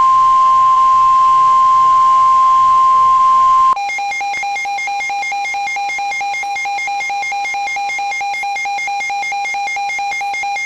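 Emergency alert attention tones ahead of a severe thunderstorm warning. A loud, steady, single-pitched tone (the NOAA Weather Radio warning alarm tone) runs until about four seconds in. It then switches to a lower steady alert tone with a faint warble above it.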